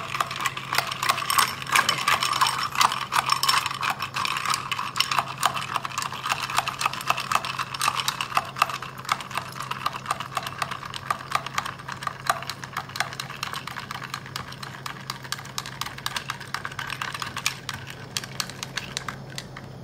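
A metal spoon stirring ice cubes and watermelon pieces in a drinking glass, with fast, continuous clinking of spoon and ice against the glass. The clinking grows softer in the second half as liquid is poured in, and stops just before the end.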